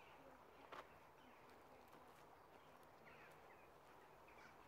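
Near silence: faint woodland ambience with a few faint bird chirps and a single soft click about three quarters of a second in.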